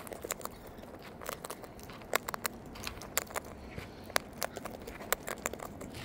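Sulphur-crested cockatoo cracking sunflower seeds in its beak: irregular sharp cracks and crunches, several a second.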